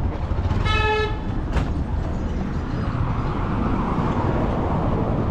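A vehicle horn gives one short toot about half a second in, followed by a sharp click, over the steady rumble of passing street traffic.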